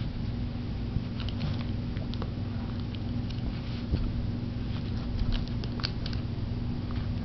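Dog chewing, mouthing and nosing a Premier Busy Buddy Twist N' Treat rubber treat-dispensing toy across a carpet: scattered light clicks and taps over a steady low hum.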